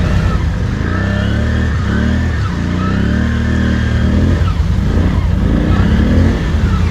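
ATV engine revving under load in mud, its revs rising and falling several times.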